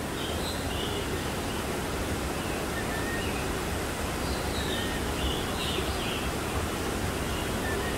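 Steady, even hiss of outdoor background noise, with a few faint, short bird chirps now and then.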